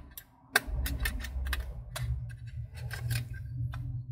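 Toner cartridge plastic parts and a metal tool handled together: a run of small, irregular clicks and taps, with a low steady hum underneath from about half a second in.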